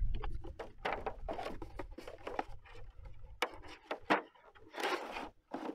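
A plastic packaging tray being handled and pulled out of a cardboard box: scattered clicks, knocks, scrapes and rustles.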